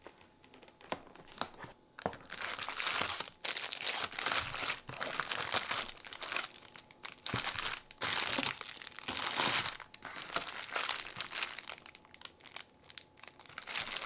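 Clear plastic wrappers on bakery buns crinkling in irregular bursts as hands move the wrapped buns about in a cardboard box. The first two seconds are quieter, with light scratches and clicks at the box lid.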